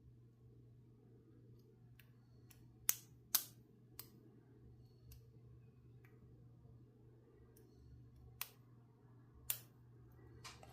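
Vintage Sargent military padlock being single-pin picked: scattered sharp metallic clicks from the pick and tension wrench working the pins, the two loudest about three seconds in, over a faint steady hum.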